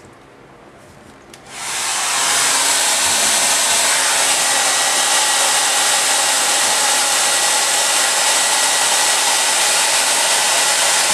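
Handheld hair dryer switched on about a second and a half in, coming up to full speed within half a second, then blowing steadily. It is aimed at a wet watercolour painting to speed its drying.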